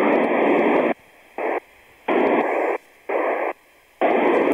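FM radio receiver hiss switching on and off in bursts as the squelch opens and closes on a weak, noisy signal. It is on for about a second, then comes in three short bursts with quiet gaps, then is steady again near the end.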